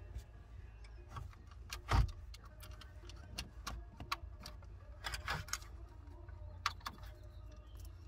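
Plastic dashboard trim panel and its wiring connector being handled: scattered small clicks and light knocks, with a louder thump about two seconds in, over a low steady rumble.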